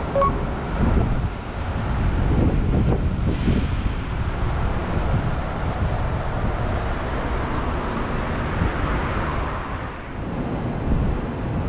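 Steady low vehicle rumble with wind noise on the microphone, and a brief hiss about three and a half seconds in.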